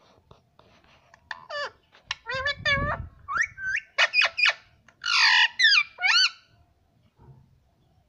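Indian ringneck parakeet calling: a quick run of short, high chirps and squawks, many sliding up or down in pitch, loudest about four to six seconds in.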